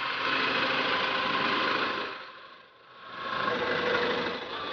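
Diesel engine of a Doosan forklift running steadily as the machine drives. The sound dips away sharply for about a second just past the middle, then comes back.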